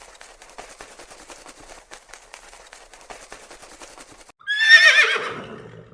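A horse whinnying once, near the end: a loud, quavering call that slides down in pitch. Before it, faint irregular clicking.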